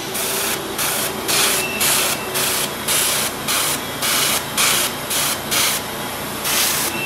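Airbrush spraying paint onto a plastic scale-model part in short hissing bursts, about two a second, with a longer burst near the end.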